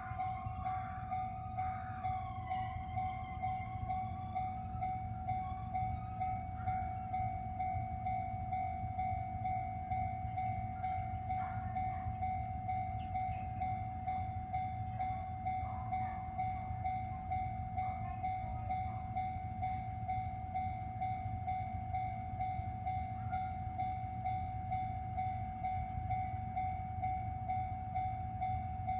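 Level crossing alarm ringing steadily with a pulsing beat while a diesel local train rumbles over the crossing. The train's horn sounds near the start, its pitch gliding.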